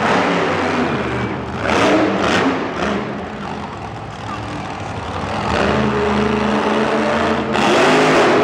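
Grave Digger monster truck's supercharged V8 engine revving hard, easing off and then climbing in pitch again as it drives the arena floor, louder near the end as the truck lifts up on two wheels.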